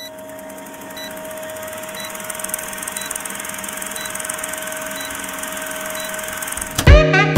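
A steady hum with a faint tick about once a second, slowly getting louder. Music with a heavy beat starts near the end.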